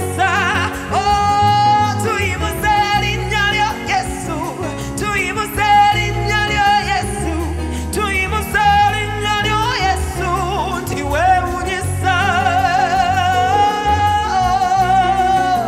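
Worship music: a woman's voice sings long, high held notes with strong vibrato and short runs between them, over sustained instrumental backing with a steady low bass.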